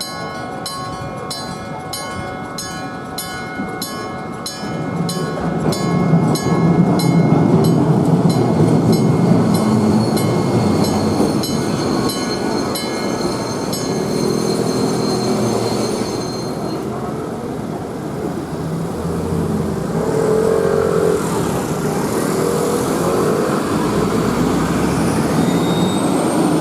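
Railway level crossing warning: an old electric crossing bell (dengshō) and a modern electronic crossing alarm ringing together, about two strikes a second, while a Keifuku Randen tram passes with a low rumble from about five seconds in. Both warnings stop about 16 seconds in, leaving the rumble of the tram and the street.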